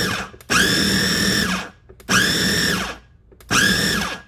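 Food processor pulsing pineapple chunks in bursts of about a second each. The motor whines up to speed and winds down in the short gaps between pulses. It is pulsed rather than run on, to chop the fruit without pureeing it.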